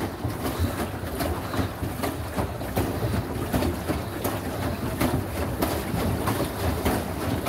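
Pedal boat under way, its pedal-driven paddle wheel churning the water with repeated clacks from the drive.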